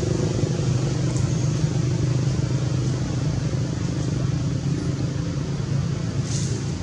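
A steady low engine hum, slowly growing fainter.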